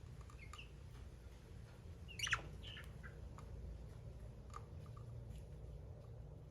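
Budgies nibbling at vegetables with faint scattered clicks, and one brief budgie chirp about two seconds in.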